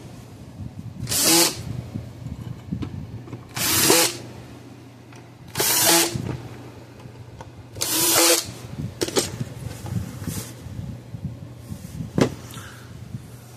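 Cordless drill-driver run in four short bursts about two seconds apart, driving in the screws of a fence charger's back cover. A few short knocks follow as the unit is handled.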